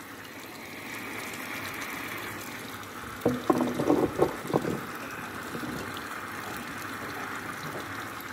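Tap water rushing steadily through a water-jet aspirator that pulls vacuum on a Büchner filtration flask. A brief burst of louder sounds about three to five seconds in as the glassware is handled.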